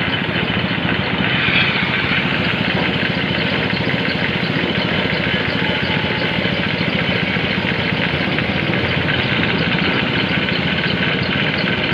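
Air compressor running steadily with a fast, even engine-like chugging. It feeds a spray gun that is painting.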